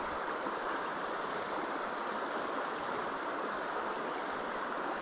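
River water rushing steadily over a shallow riffle, an even hiss that does not change.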